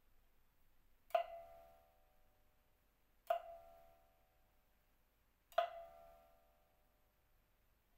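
Pipa playing three separate single notes, a couple of seconds apart, each sounding sharply and then ringing and fading away within about a second.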